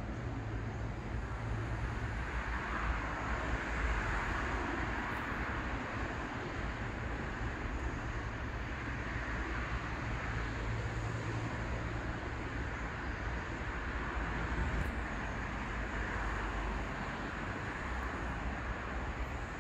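Continuous rush of road traffic from a busy main road, steady throughout with a low rumble underneath.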